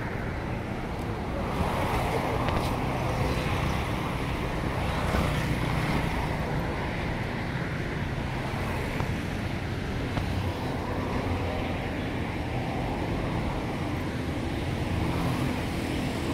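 Street traffic: motorcycles and cars driving past on the road, a steady mix of engine and tyre noise.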